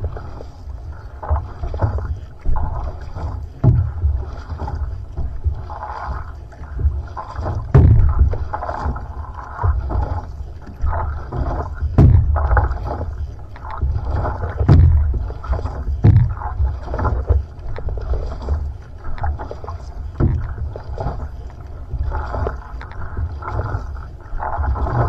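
Single-blade paddle strokes driving an outrigger canoe (va'a): a splash and rush of water with each stroke, the strongest about every two seconds, over a steady low rumble of water and wind against a microphone mounted low on the hull.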